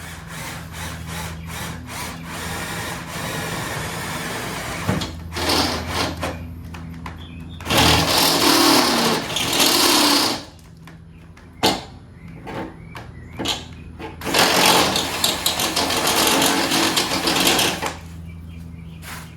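Power drill running a step drill bit through the fender's sheet metal. The drilling comes in stretches: a rising run over the first few seconds, a loud burst about eight seconds in, and the loudest stretch from about fourteen to eighteen seconds in, over a steady low hum.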